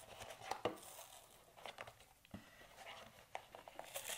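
An empty milk carton (Tetra Pak) being worked open by hand along its top fold: faint crinkling of the coated cardboard with a few sharp clicks.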